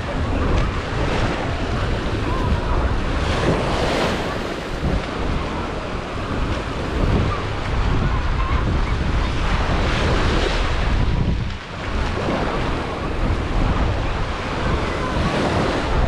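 Surf breaking and washing up a sandy beach in repeated swells, with wind rumbling on the microphone.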